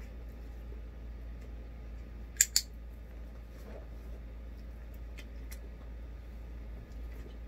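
Two sharp clicks in quick succession about two and a half seconds in, then a few fainter ticks a little later, over a steady low hum.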